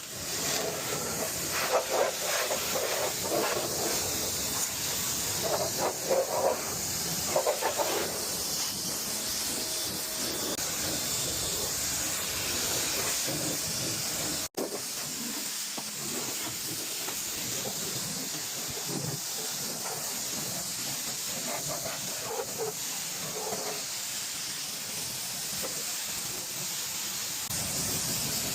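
Pressure-washer spray from a curved undercarriage wand hissing steadily as it rinses the underside of a truck. The hiss surges now and then in the first few seconds and drops out for an instant about halfway through.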